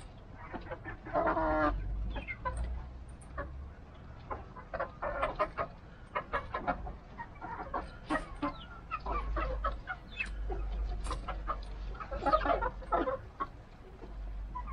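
A small flock of Rhode Island Red chickens clucking as they feed, with louder drawn-out calls about a second in and again near the end. Many short sharp taps of beaks pecking at greens and grit run through it.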